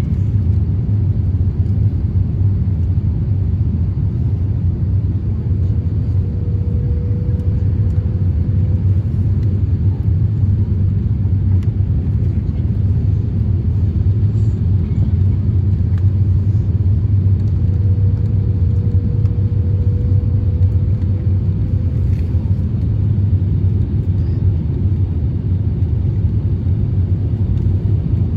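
Steady low rumble of an Airbus A350-1000's engine and airflow noise, heard inside the passenger cabin. A faint steady tone comes in twice for a few seconds.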